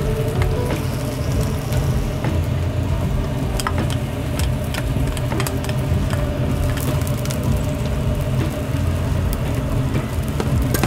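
Rice being stir-fried in a wok: a wooden spatula scrapes and knocks against the wok many times over light frying, with a steady low rumble underneath.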